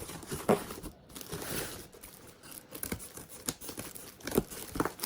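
A parcel's packaging being torn open and crinkled by hand, with irregular sharp crackles.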